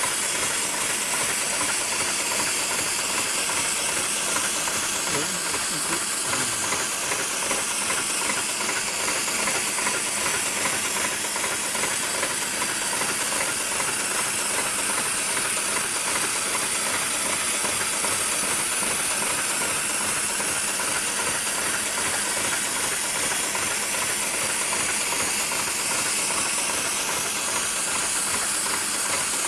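Steady, even mechanical hiss with machine noise underneath, unbroken throughout and with no distinct stitching rhythm.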